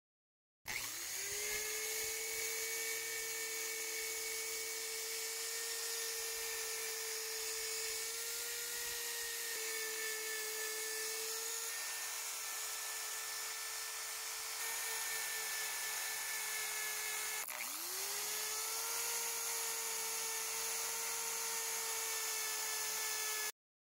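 Power tool with a wire cup brush spinning up and running with a steady high whine as it scours rust off a steel knife blade. About two thirds of the way through it briefly slows and spins back up.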